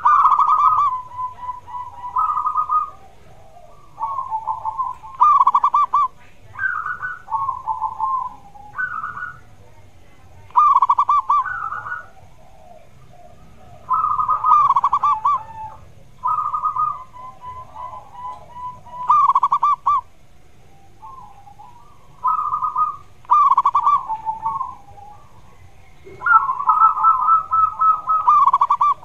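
Zebra dove (perkutut) cooing song: repeated phrases of rapid, stuttering coos, one every one to two seconds.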